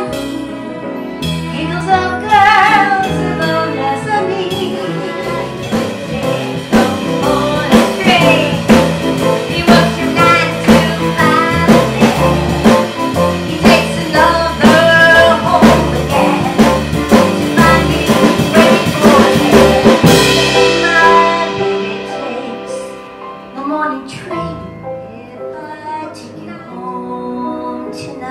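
A woman singing live into a microphone, backed by a small band that includes an upright bass. The band plays a steady beat and is loudest through the middle, dropping back quieter for the last several seconds.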